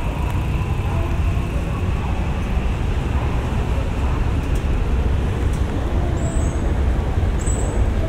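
323-series electric train running along an elevated viaduct overhead, giving a steady low rumble of wheels on rail. Two brief high squeaks come near the end.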